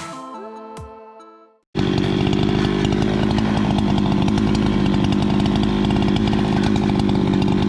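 Electronic music fading out, then after a short gap a Husqvarna 395XP two-stroke chainsaw cuts in suddenly at full throttle. It runs steadily at a constant pitch while milling a log in a Granberg Alaskan chainsaw mill.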